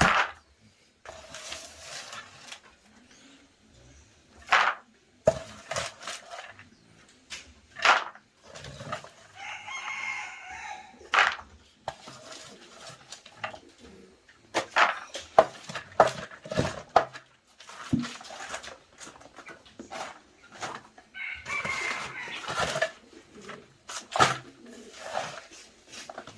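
A rooster crowing twice, about ten seconds apart, with chickens clucking and scattered short knocks and clicks.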